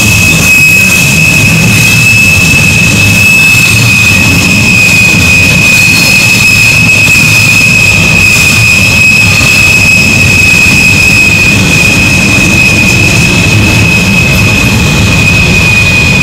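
Freight train of tank cars and boxcars rolling past on a tight curve: a steady low rumble of wheels on rail under a continuous high-pitched wheel squeal, the wheel flanges grinding against the rail through the curve.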